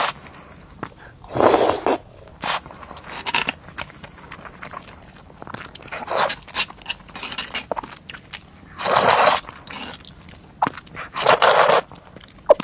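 Close-miked eating: crunchy bites and chewing, with many small clicks and crackles and three louder half-second crunches spread through.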